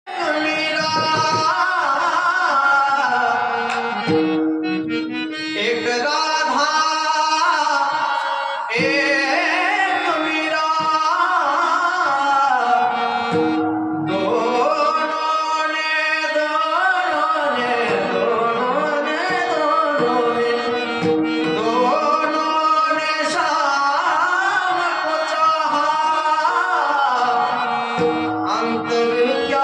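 Marathi kirtan devotional singing: a voice sings a gliding, ornamented melody over sustained harmonium notes and tabla.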